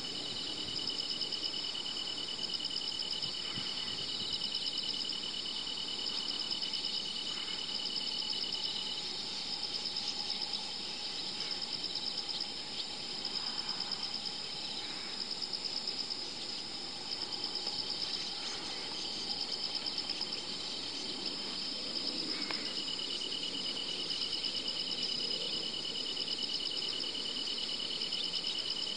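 Steady evening insect chorus from the reed bed: several high, continuous, finely pulsing trills layered together, one of which stops for a while and resumes. A few faint short chirps are scattered over it.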